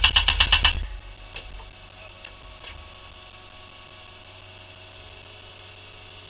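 Premier hydraulic post driver on a skid steer rapid-fire hammering a wooden post into the ground, about ten blows a second, stopping just under a second in. After that only a faint steady hum remains.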